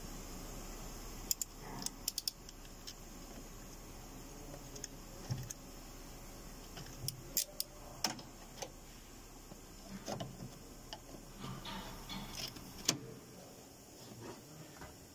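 Scattered small metallic clicks and clinks of pliers working a hose clamp as the power-steering return hose is refitted to the fluid reservoir, the loudest about eight and thirteen seconds in.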